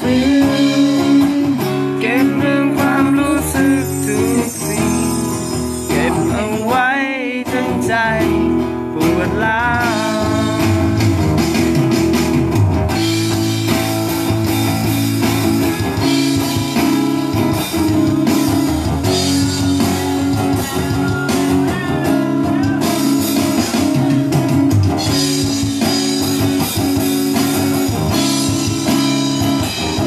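Live guitar music with a singing voice, played through a PA system, with a bluesy feel.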